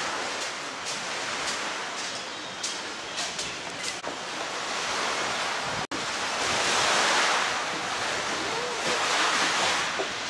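Small sea waves washing over a shingle beach, with sharp clicks of pebbles. After a sudden cut about six seconds in, surf washes in around the pier's iron legs, swelling twice.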